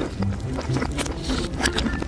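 Close-miked eating sounds of a large sausage being bitten and chewed, played backwards: a rapid string of wet mouth clicks and smacks.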